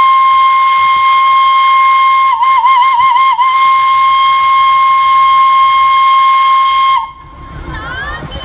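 Darjeeling Himalayan Railway toy-train steam locomotive's whistle blowing one long, steady high note. It wavers for about a second near the middle and cuts off abruptly near the end.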